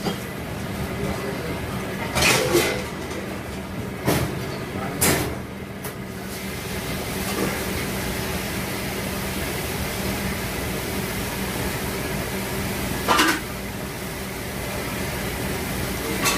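Steady machine hum of a busy commercial kitchen during a rush, with four short sharp knocks, the loudest about two seconds in and near the end.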